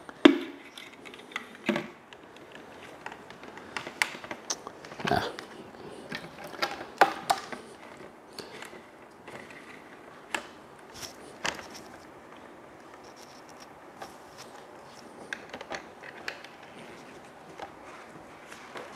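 Irregular clicks, knocks and scrapes of a plastic two-gallon pump sprayer being handled: its pump head screwed on and a portable air pump's hose fitted to its valve.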